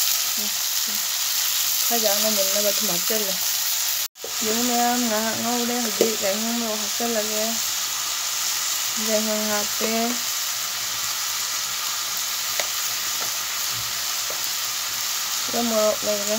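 Vegetables sizzling in a hot wok over a wood fire, with a steady hiss, while a metal spatula stirs and scrapes through them. Short stretches of wavering pitched tones come and go underneath, and the sound drops out for a split second about four seconds in.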